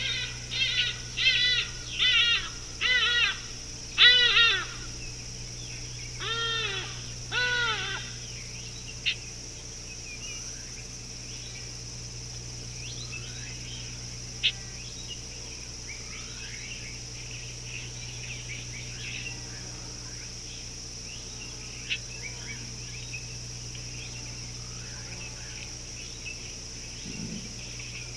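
A bird giving a run of about eight loud calls over the first eight seconds, each rising then falling in pitch. Faint scattered chirps of other birds follow, with a couple of sharp clicks.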